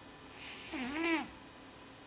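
Hamster snoring in its sleep: one whining, pitched breath of under a second, about half a second in, its pitch dipping and then rising.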